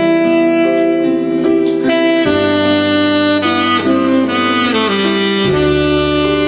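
A saxophone plays a melody in held notes, moving step by step in pitch, over a backing track with a steady bass line.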